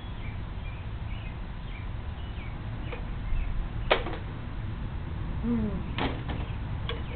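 Outdoor ambience: a low steady rumble with faint bird chirps, a short falling call about five and a half seconds in, and a few sharp clicks, the loudest about four seconds in.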